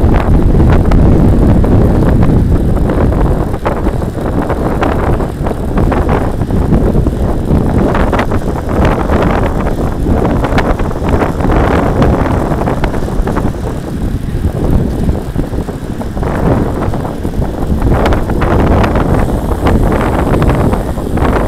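Wind buffeting the microphone of a handlebar-mounted camera on a road bike moving at speed, mixed with tyre and road rumble, with scattered sharp clicks and rattles from the bike.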